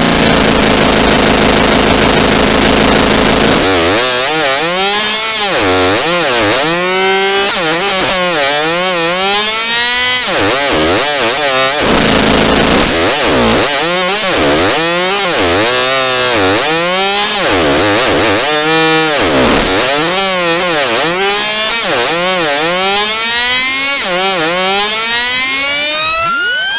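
Two-way radio interference sound effect: a loud steady buzz over hiss for about three and a half seconds, then whistling tones that sweep up and down over and over, about one swoop a second, ending in a long rising whistle.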